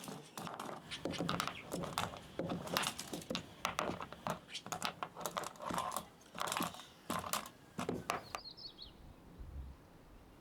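Dry corn husks and stalks rustling and crackling as they are handled, in rapid irregular bursts that stop about eight seconds in. A brief high chirp follows.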